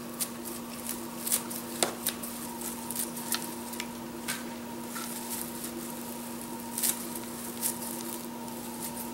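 Kitchen shears snipping through the stems of a tray of cilantro seedlings. The snips are short and crisp and come at irregular intervals, about a dozen in all. A steady electrical hum runs underneath.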